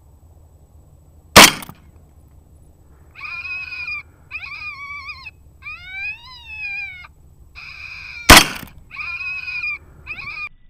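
A rifle shot about a second and a half in, then a series of high, wavering yelps from the hit coyote. A second shot comes about eight seconds in, and more short yelps follow.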